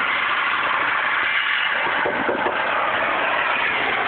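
Blizzard wind blowing hard, a steady rushing noise with no change in level.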